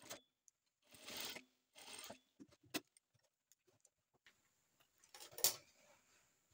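Crepe fabric rustling in short, faint bursts as it is handled and trimmed with scissors, with one sharp click a little under three seconds in and the loudest rustle about five and a half seconds in.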